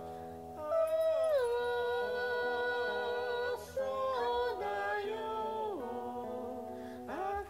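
A recorded song played through a speaker for cats left home alone: one voice holding long notes and sliding between pitches, with vibrato on some notes.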